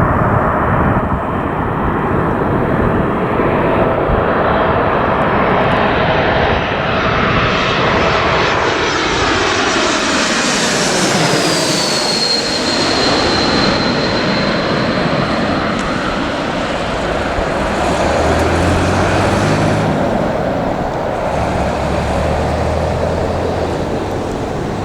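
Airliner passing close by on its landing approach. The engine rush and whine build as it nears, then the whine drops in pitch as it goes past about eleven to twelve seconds in and eases off into a steady high whine as it moves away.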